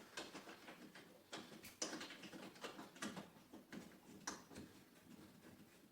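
Stainless steel screws being driven down by hand with a screwdriver: a faint, irregular run of light clicks and ticks, with one sharper click about four seconds in.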